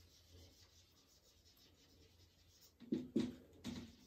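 Dry-erase marker writing on a whiteboard: faint, then a few quick pen strokes across the board near the end.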